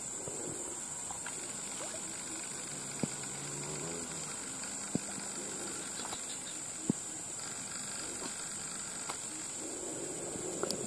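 Quiet outdoor ambience: a steady high-pitched hiss, with a few faint clicks scattered through it.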